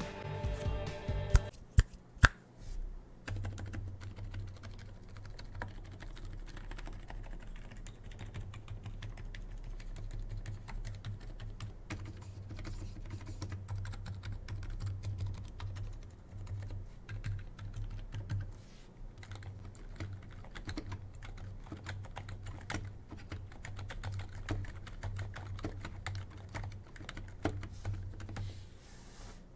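Continuous typing on a CIY X77 hot-swappable mechanical keyboard fitted with Silent Alpaca linear switches: a steady run of soft, quiet keystrokes. A few sharper clicks come about two seconds in, before the typing settles into a steady run.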